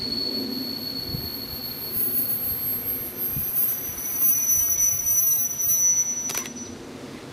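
ЭТ2М electric multiple unit approaching slowly with high, steady squealing from its steel wheels. The pitch steps up partway through, and the squeal stops with a sharp click near the end, over a low running rumble.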